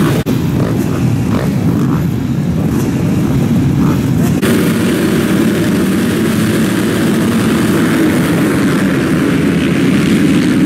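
A pack of motocross bikes revving at the start gate, then about four and a half seconds in the engines go to full throttle together as the field launches off the line, holding a steady, loud massed engine sound.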